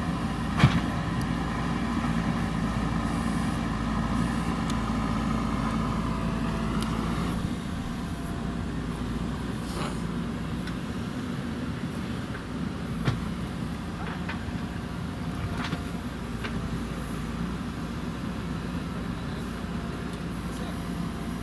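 JCB backhoe loader's diesel engine running steadily under work. A sharp loud clank comes about half a second in, and a few fainter knocks follow later, typical of the bucket and arm striking.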